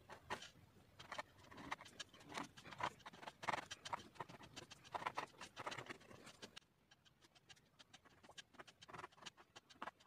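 Wooden toothpick scratching through a dried layer of black gouache over wax crayon on thick paper, in quick short strokes. The scratching is faint and thins out after about six and a half seconds.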